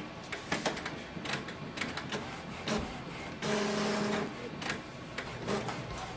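Epson XP-970 inkjet printer printing its print-head alignment sheet: a run of mechanical clicks and ticks from the print carriage and paper feed. About halfway through, a steady motor whine lasts for roughly a second as the printed sheet is fed out.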